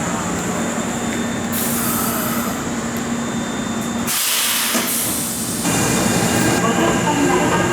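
Kintetsu electric train standing at the platform, with a steady hum and hissing bursts of air, the strongest about four seconds in lasting under two seconds. Near the end, shifting higher tones join the hum.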